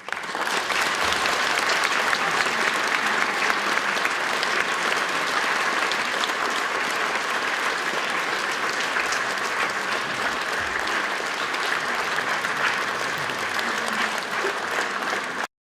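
Audience applause: many hands clapping in a dense, steady patter that starts abruptly and cuts off suddenly near the end.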